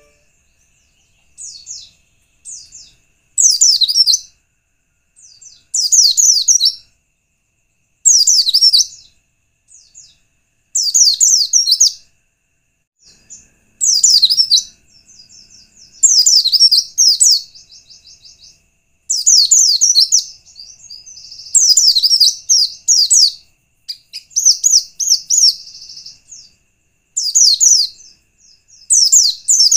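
White-eye (pleci) singing short, rapid, high-pitched warbling phrases, about a second each, repeated every two to three seconds. It is played as a lure song meant to set other white-eyes singing.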